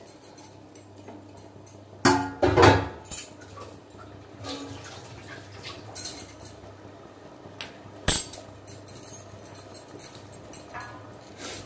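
Metal pot lid lifted off an aluminium cooking pot and set down with a ringing metallic clatter about two seconds in, followed by a few lighter clinks. A single sharp knock comes about eight seconds in.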